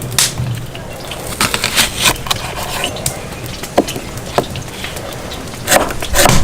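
Irregular sharp clicks and knocks from campfire cooking work, scattered at first, then louder and packed close together near the end.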